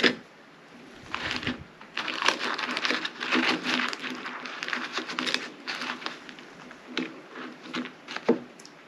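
Parchment paper crinkling and a table knife scraping soft goat cheese onto a crisp cracker: an irregular run of short crackly rustles, quieter for the first second or two.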